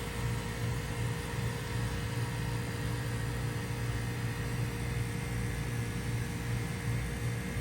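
1995 Bard 3.5-ton wall-hung heat pump running through its defrost cycle: a steady low compressor hum with an even hiss over it.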